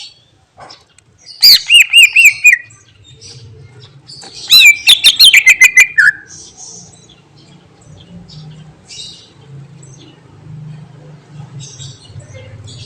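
A cucak ijo (green leafbird) singing two loud bursts of rapid, looping whistled notes a few seconds apart, then only faint scattered chirps over a low steady hum.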